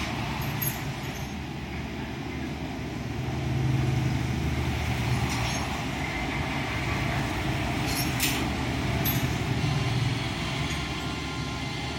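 Industrial robot arm's motors running, a low hum that swells twice as the arm moves, with a few short clicks.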